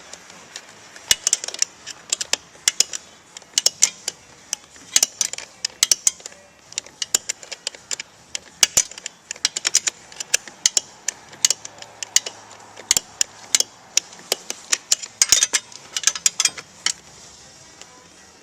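Irregular metallic clicks and clinks, often in quick clusters, from hand work on a car seat's metal mechanism.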